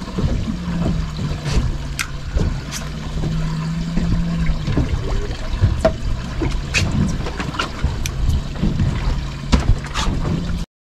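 Water lapping against a fishing boat's hull, with a low steady hum, wind on the microphone and scattered sharp clicks and knocks. The sound cuts out briefly near the end.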